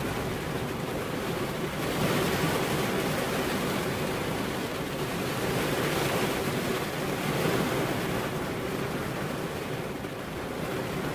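Heavy rain falling, a steady rushing hiss that swells about two seconds in and again around six to seven seconds, then eases near the end.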